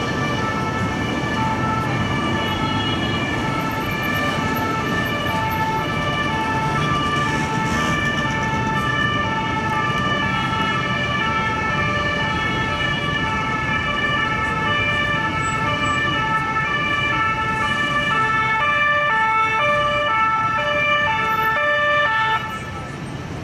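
Two-tone siren of a Paris police MAN tow truck, alternating steadily between a high and a low note over traffic noise, then cutting off suddenly near the end.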